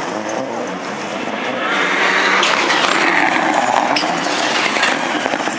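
Peugeot 208 rallycross Supercar engine running hard as the car slides through a dirt corner, with tyre and loose-dirt noise. It gets louder about two seconds in as the car powers out of the turn.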